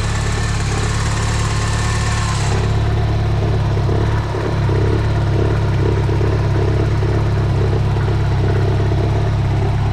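Mini Cooper S's turbocharged four-cylinder engine idling steadily while warming up, running smoothly on a newly replaced ignition coil pack with no misfire. A high hiss over the idle stops about two and a half seconds in.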